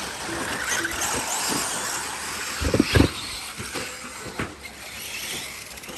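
Radio-controlled buggies racing on a dirt track: a steady whirring hiss of small motors and tyres on dirt. Two loud thumps come close together about three seconds in, and a sharper knock follows a second and a half later.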